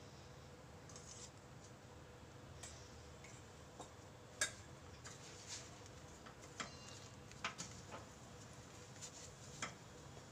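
Wooden spatula stirring a thick milk, milk-powder and ghee mixture in a non-stick kadhai, giving soft scattered knocks and scrapes against the pan, the sharpest about four and a half seconds in. A faint steady hum runs underneath.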